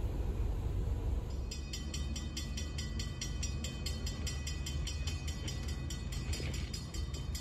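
Railroad grade-crossing bell ringing rapidly and evenly, about four to five strokes a second, starting about a second and a half in. It warns of an approaching train, over a low steady rumble.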